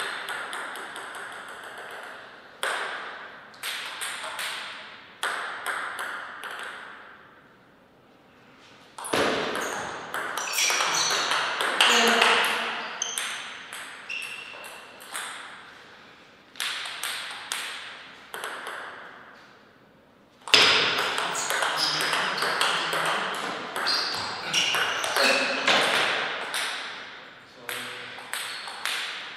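Table tennis rallies: the plastic ball clicking off the table and the rubber-faced bats in runs of quick sharp knocks, broken by two short lulls between points.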